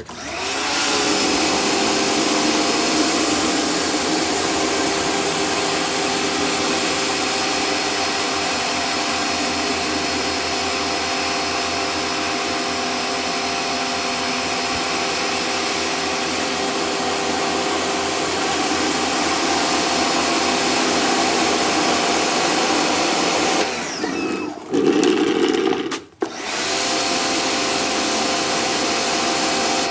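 Sun Joe pressure washer running steadily, its motor whine under the hiss of water jetting from an Aihand 13-inch surface cleaner's spinning nozzles onto concrete. About 24 s in the sound changes for a couple of seconds, and just after 26 s it cuts out for a moment before starting again.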